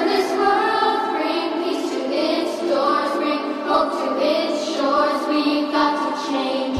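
Music: a passage of a slow pop song with held melodic lines and no bass.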